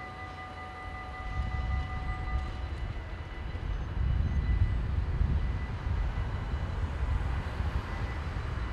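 Level crossing warning bells ringing as steady tones, then stopping about two and a half seconds in as the barriers go up. A low, uneven rumble swells in the middle.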